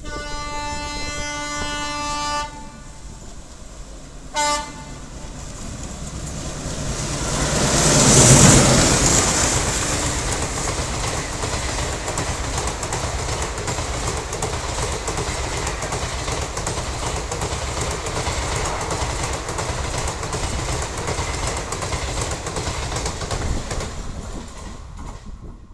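Indian diesel express train passing at speed. The locomotive sounds its horn in one long blast of about two and a half seconds, then a short toot, and comes loudest as it passes about eight seconds in. The coaches follow with a steady clickety-clack over the rail joints, fading near the end.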